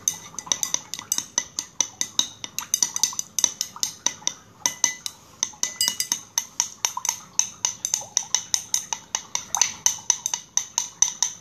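A utensil clinking against the inside of a glass while a gel base is stirred briskly, about five quick, ringing clinks a second. The water and gelling agent are slowly thickening into gel.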